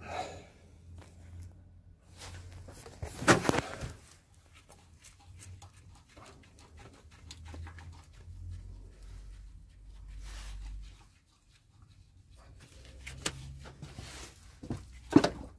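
Scattered knocks, clanks and handling noises from hand work fitting a car gearbox into place, with a sharp loud knock about three seconds in and another near the end, over a faint low hum.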